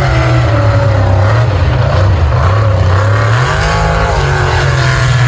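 Engine of an off-road race vehicle running hard, its pitch rising and falling as it revs.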